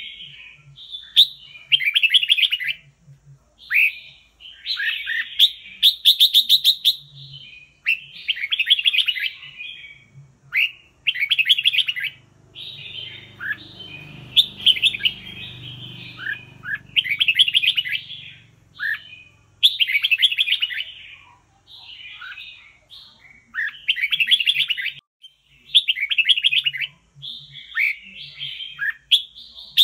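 Caged red-whiskered bulbul singing: short, bright warbled phrases repeated every second or two. A faint low rumble swells and fades in the middle.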